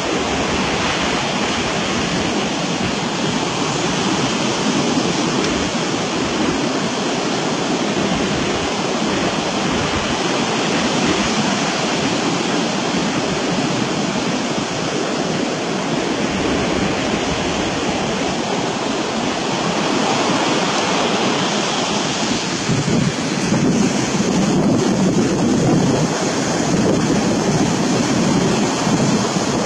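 Steady rushing noise, growing a little louder about three-quarters of the way through.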